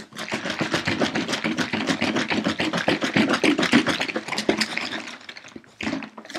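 Soylent powder and water being shaken vigorously in a plastic orange juice jug to mix them: rapid sloshing and rattling strokes that stop about a second before the end, followed by one short last shake.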